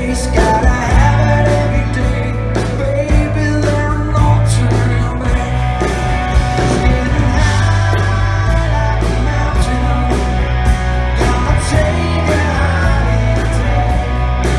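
Live rock band playing: electric guitars, electric bass and drums, with a lead vocal sung over them.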